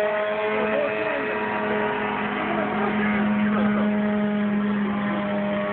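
Radio-controlled model airplane's motor running in flight overhead, a steady engine tone whose pitch wavers slightly as the plane manoeuvres.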